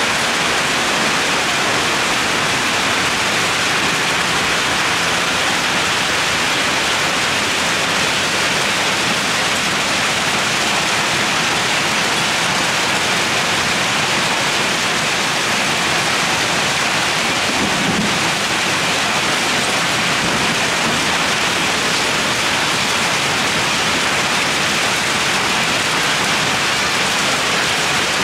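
Hailstorm: hailstones and rain pelting down on pavement, grass and cars in a loud, steady, unbroken hiss.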